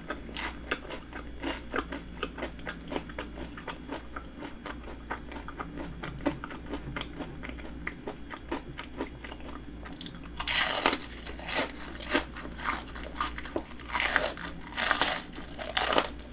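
Close-miked chewing of crispy breaded fried shrimp: a continuous run of small crunches, with louder crunchy bites about ten seconds in and again near the end.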